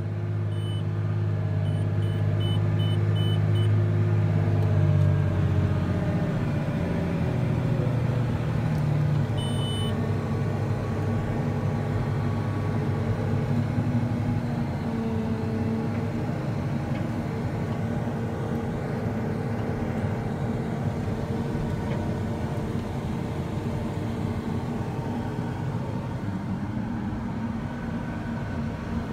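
Diesel engine of a Case IH Steiger 370 HD four-wheel-drive tractor running steadily under load while pulling a disk ripper through corn stalks, a deep drone whose tone changes about six seconds in. Short high beeps sound several times near the start and once about ten seconds in.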